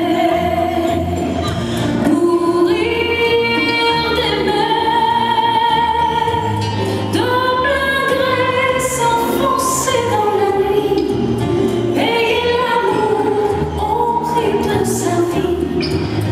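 Ballroom rumba music with a singer holding long, wavering notes over a bass line.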